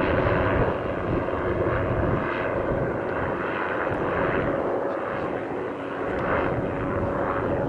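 Hughes 500 helicopter in flight: a steady turbine tone over rotor noise, with the deep low rotor sound dropping away about a second in.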